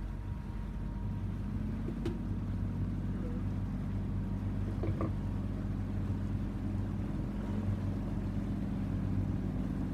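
Boat motor running steadily while cruising, a low hum with a higher steady tone joining about a second and a half in, over wind and water noise.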